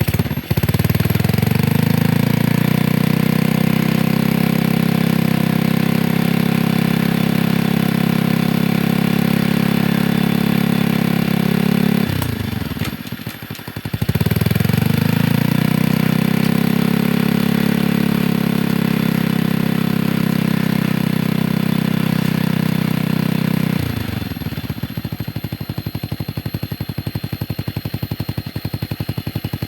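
Motorcycle engine driving a homemade scrap-built winch under load. It revs up and holds high for about twelve seconds, drops off briefly, revs up again for about ten seconds, then falls back to a lower, quieter idle near the end.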